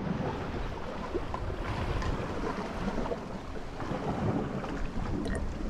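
Wind buffeting the microphone over the steady wash of sea water along a rocky shore.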